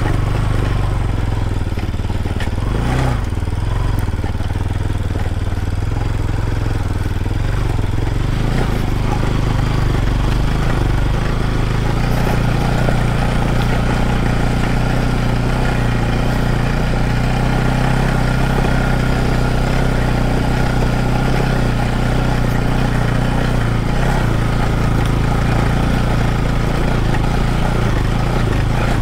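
Motorcycle engine running steadily while riding off-road, with a brief change in pitch about three seconds in.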